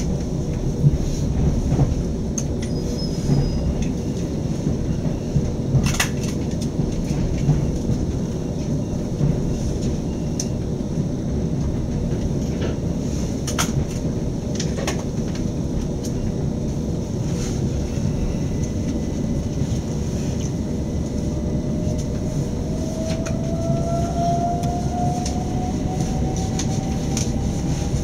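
Steady rumble of an Electrostar electric train running, heard from inside the carriage, with scattered short clicks. Over the last few seconds a whine rises slowly in pitch as the traction motors pick up speed.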